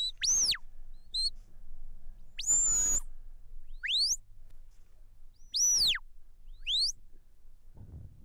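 Shepherd's whistle commands to a working border collie: about six short, sharp whistles, some rising and some rising then falling, with one longer high steady note about two and a half seconds in. The whistles are signals steering the dog as it brings the sheep in.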